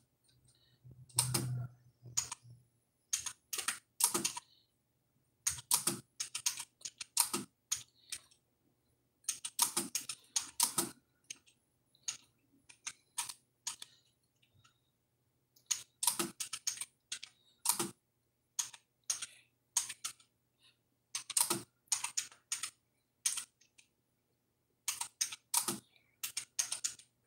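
Typing on a computer keyboard: irregular runs of keystroke clicks separated by short pauses.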